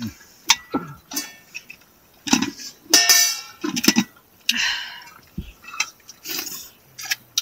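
Metal plates, spoons and a pot clinking and scraping as people eat and serve rice: a string of short, sharp clinks, one of them ringing about three seconds in, and a brief scrape a little later.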